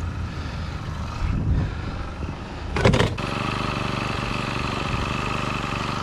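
Small gas engine of a Rhino post driver running, uneven at first; a knock about three seconds in, after which it runs steadily at an even, higher pitch.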